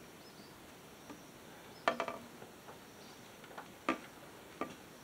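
Plastic downspout pieces clacking and knocking as they are handled and fitted together: a quick run of three clacks about two seconds in, then two single knocks near the end.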